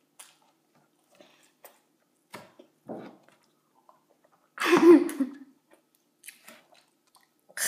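Someone chewing a mouthful of breakfast sandwich, with faint scattered mouth clicks, and a single loud cough about five seconds in.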